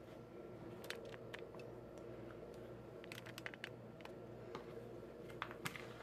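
Metal spoon stirring stiff cookie dough in a plastic tub: faint scattered clicks and taps of the spoon against the container, bunched together about three seconds in and again near the end.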